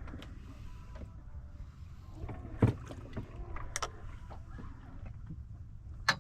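Steady low rumble of wind and water around a fishing boat on the open sea, broken by a few sharp knocks, the loudest about two and a half seconds in.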